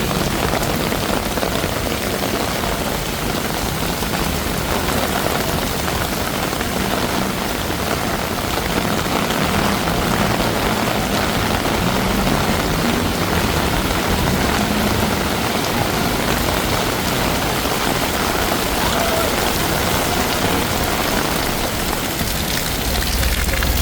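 Heavy monsoon rain pouring steadily, a dense even hiss of rain on the street and surfaces.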